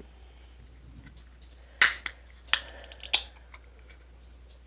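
Three sharp clicks, about half a second apart, from a bottle of mango nectar drink being handled and opened.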